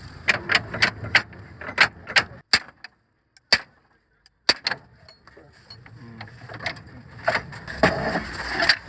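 Sharp metallic clicks and knocks from hand tools working on metal truck parts, coming in quick irregular runs. There is a near-silent stretch of about two seconds in the middle with only single clicks, and the clicking picks up again near the end.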